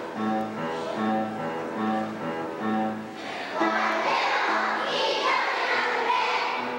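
Music: an instrumental accompaniment plays evenly spaced notes, and about halfway through a group of young children joins in singing, louder.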